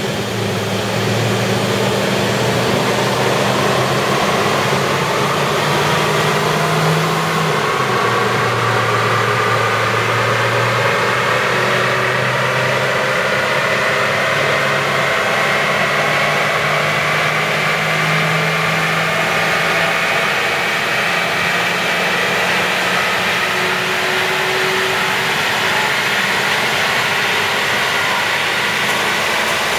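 1996 Mercury Grand Marquis's 4.6-litre V8 running under load on a chassis dynamometer, with a whine that rises slowly and steadily in pitch as the speed builds.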